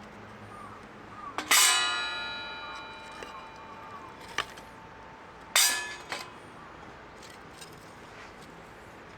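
A metal object struck twice, about four seconds apart, each strike a clang that rings on. The first rings with several tones for over a second; the second is shorter.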